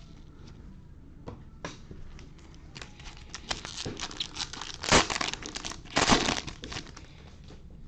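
A foil-wrapped trading-card pack being opened by hand, crinkling and tearing. A few scattered crackles come first, then dense crinkling with two loud rips about five and six seconds in.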